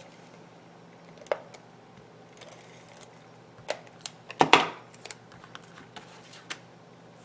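Handling of cardstock and a small adhesive applicator on a craft table: scattered light clicks and taps, with a louder paper rustle and clatter about four and a half seconds in.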